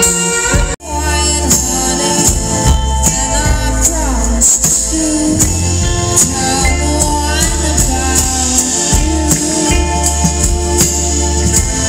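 Music with singing over a steady beat and shaker-like percussion. The sound cuts out briefly just under a second in and the music resumes.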